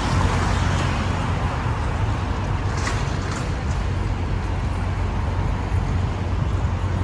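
Steady city street traffic noise: a continuous wash of passing vehicles with a low hum underneath.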